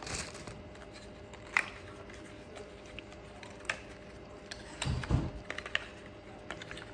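Scattered small clicks and light crinkling of cosmetic product packaging being handled, with a soft bump and a quick run of clicks about five seconds in.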